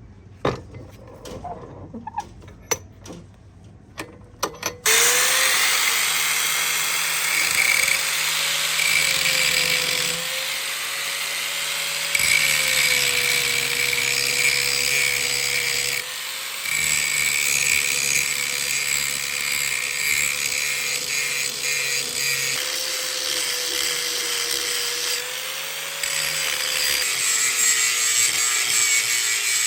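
A few sharp knocks, then about five seconds in an electric grinder starts and runs steadily on metal, a hum that wavers a little in pitch under a constant hiss, easing and pressing back in a few times.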